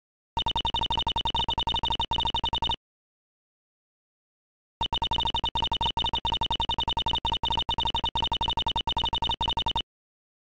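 Ace Attorney-style dialogue text blips: a quick train of short electronic beeps, one per character as the text types out. There are two runs, a short one starting just after the beginning and a longer one after a pause of about two seconds.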